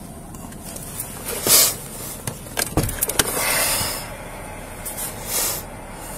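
Patrol car cabin noise: a steady low vehicle rumble, with short hissing surges about a second and a half in, again around the middle and near the end, and one sharp thump just before the middle.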